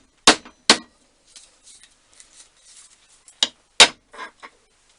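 Sharp metal clicks and knocks of a hand tool on a bolt being tightened, in two pairs about three seconds apart, with faint scraping between them.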